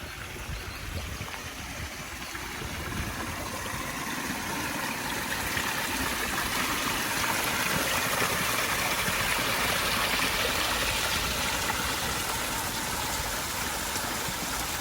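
Flowing water rushing steadily, growing louder over the first half and then holding.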